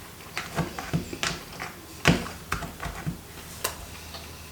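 A person chewing a mouthful of hamburger, with short irregular wet mouth smacks and clicks, about eight in all, the loudest about two seconds in.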